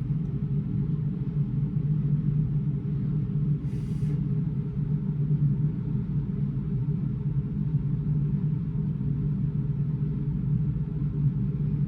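Steady low machinery hum and rumble in a cruise ship cabin, with a brief hiss about four seconds in.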